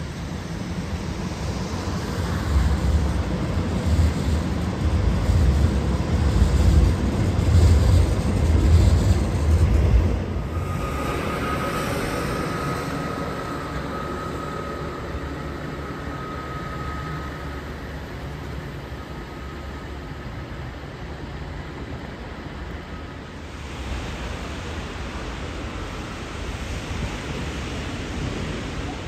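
Rail traffic on street tracks: light-rail trams and a rail maintenance vehicle running through a junction. A heavy low rumble builds and falls away in the first ten seconds, then a thin steady whine holds for several seconds, and near the end the sound changes to a softer distant rumble.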